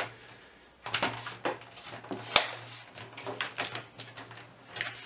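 Irregular sharp clicks and knocks of an Amiga 1200's plastic case being handled and pressed together, the loudest about two and a half seconds in.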